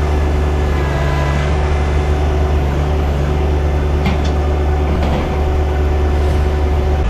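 John Deere 1025R sub-compact tractor's three-cylinder diesel engine running steadily under working revs, with a couple of brief knocks about four and five seconds in.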